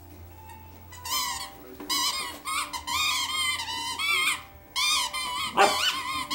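Dog's squeaky toy squeaking over and over as an English Springer Spaniel puppy chews it: a run of high, wavering squeaks in quick succession, then a louder rising squeak near the end.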